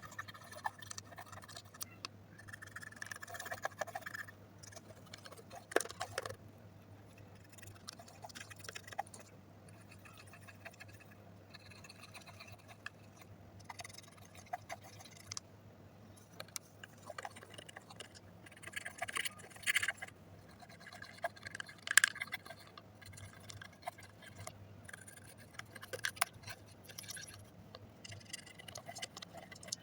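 Slime being mixed and handled by hand: irregular soft sticky clicks, squishes and scrapes, with a few sharper ones about 6, 20 and 22 seconds in, over a faint steady low hum.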